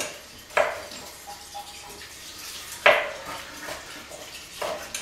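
Kitchen utensils clattering: three sharp knocks with lighter clinks between them, from a knife slicing tomatoes on a wooden cutting board and a spoon in a bowl.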